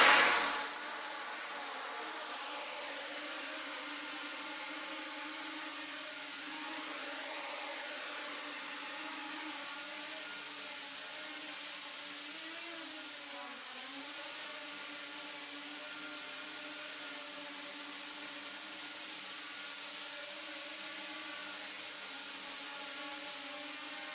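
Small quadcopter's brushless motors and propellers lifting off with a loud surge right at the start, then whirring steadily as it hovers. The pitch wobbles briefly about halfway through as the throttle is adjusted.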